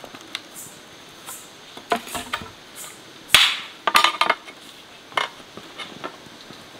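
Hard objects knocking and clinking against each other several times, the loudest strikes about three and a half and four seconds in, over a faint high rasp that pulses about twice a second.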